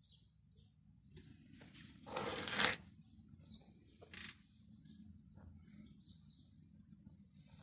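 Small birds chirping now and then, short high falling chirps over a low steady background rumble, with a brief loud rush of noise about two seconds in.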